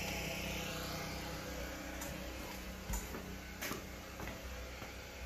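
A steady low hum, with a few light clicks of equipment being handled and switched, about two, three and nearly four seconds in.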